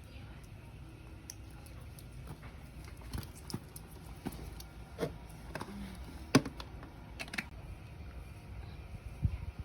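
Scattered light clicks and taps over a steady low rumble, the sharpest about six seconds in.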